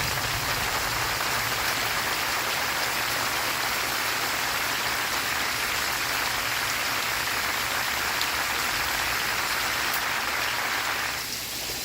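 Steady rain, a dense even hiss of drops that eases slightly about eleven seconds in.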